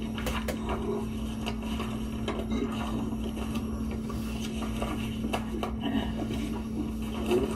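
Room tone of a meeting hall heard through a screen's speaker: a steady hum with a few faint clicks and shuffles scattered through it.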